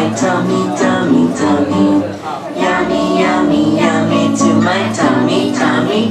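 A group of children singing a song together to strummed acoustic guitar accompaniment.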